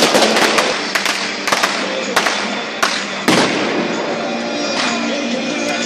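Fireworks and firecrackers going off in a string of sharp bangs, about one every half second, for the first three seconds or so. After the last bang, music carries on.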